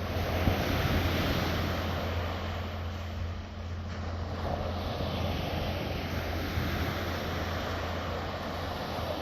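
Sea waves washing and breaking on the shore, swelling and easing, with wind buffeting the microphone and a steady low hum underneath.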